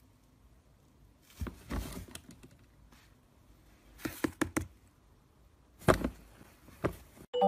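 Hollow knocks and clatters of a plastic swing-lid trash can as a cat climbs into it and pushes through the lid. They come in three short clusters, about a second and a half in, at four seconds and at six seconds.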